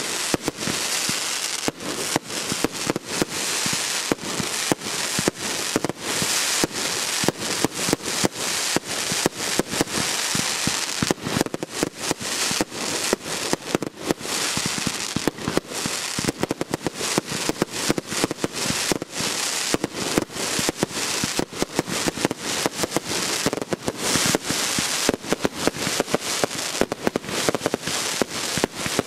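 Aerial fireworks bursting overhead: a dense, continuous crackle of many sharp pops, several a second, from crackling stars.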